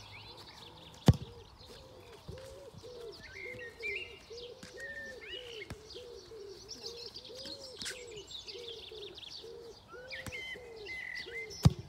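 A football is kicked twice with sharp thuds, once about a second in and again near the end. Between the kicks birds sing steadily: small birds chirp high up, and a low call repeats two or three times a second.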